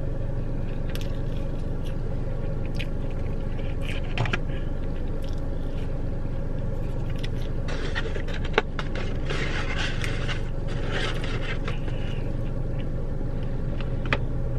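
Steady low hum inside a car, with scattered small clicks and a stretch of food-packaging rustling about eight to eleven seconds in, as someone eats.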